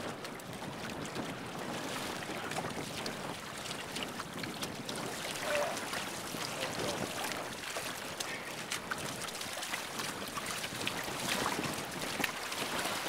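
Wind noise on the microphone and water splashing and slapping along the hull of an outrigger sailing canoe under way, with frequent short, sharp splashes.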